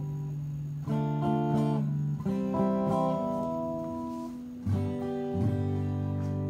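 A stringed instrument played through an Ampeg Portaflex B-15-N tube bass amplifier, notes and chords ringing out clean with no distortion. New notes are struck about a second in, a little after two seconds and again near five seconds.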